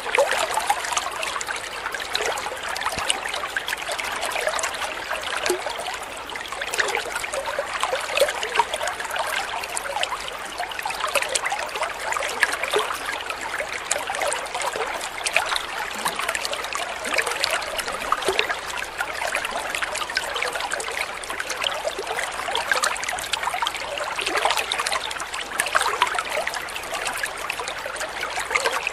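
A small stream of water falling into a koi pond, trickling and splashing steadily with a fine, crackly patter and no pauses.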